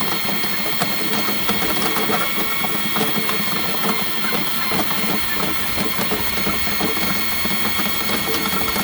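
Power drain-snake machine running with its cable spinning in a root-clogged sewer main: a steady motor whine over a continuous clicking, rattling chatter.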